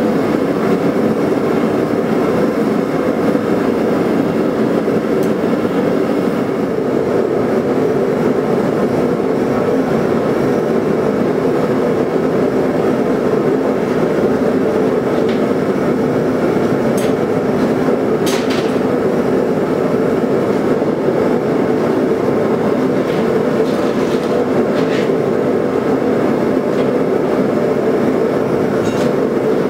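Gas forge burner running with a steady, loud rushing noise and a low hum, heating a blade for hardening. A few faint metallic clicks sound over it.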